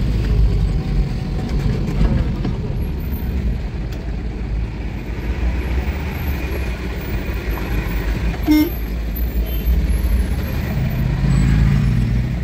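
Truck engine running with road noise while driving, a steady low rumble, with a short horn toot about eight and a half seconds in.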